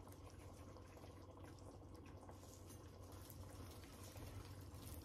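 Near silence: faint room tone with a steady low hum and a few very soft ticks.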